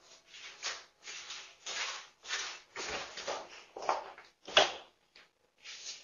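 A run of short rustling, scuffing noises close to the microphone, about two a second, as a person moves up to a doorbell camera, with one sharp knock a little over four and a half seconds in.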